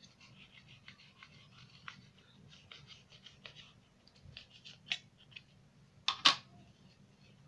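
Kitchen knife cutting through a stack of thin, dry samosa pastry sheets on a plate: a run of short, dry scratching strokes, with two louder ones about six seconds in.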